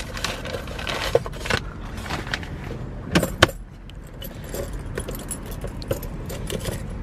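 Papers rustling in a car glovebox, then a key ring jangling as a key is worked in the glovebox lock, with two sharp clicks about three seconds in.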